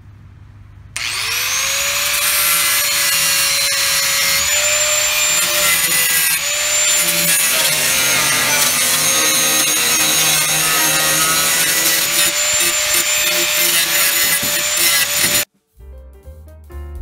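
Angle grinder spinning up about a second in, then cutting through sheet steel on a rusty truck body: a steady whine over a harsh hiss. It cuts off abruptly near the end, and piano music follows.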